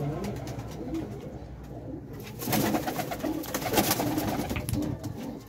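Domestic pigeons cooing in a small room. From about two seconds in there is a louder stretch of rapid clatter and rustling that lasts a few seconds.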